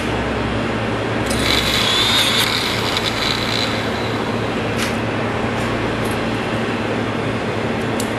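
CNC machine running: a steady motor hum under machining noise, with a higher hiss joining for about two seconds a little over a second in, and a few sharp clicks.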